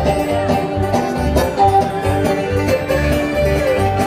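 Live bluegrass band playing, banjo and fiddle over acoustic guitar and upright bass, with a steady bass beat.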